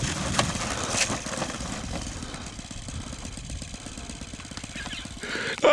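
Saito FA-62B four-stroke glow engine of a model P-51 Mustang idling on the ground after landing, a steady low putter that slowly fades.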